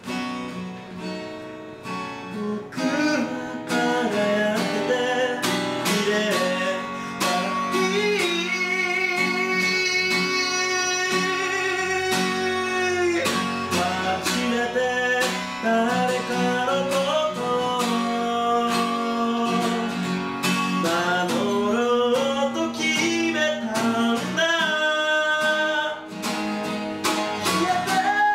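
Live acoustic guitar strummed with a man singing over it, including one long held note in the middle.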